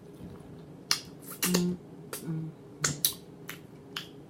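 Close-up eating sounds: chewing with a string of sharp, wet lip smacks and mouth clicks, about nine over a few seconds, with a couple of brief low hums.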